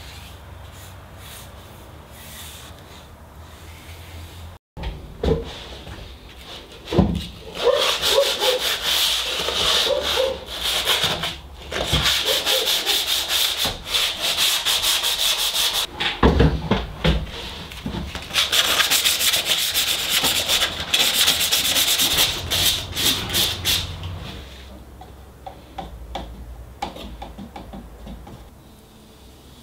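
Sandpaper rubbed by hand over rusty sheet steel in a van body, taking the rust off before painting. Rapid scratchy back-and-forth strokes start several seconds in and run in two long spells with a short break between, with a few knocks.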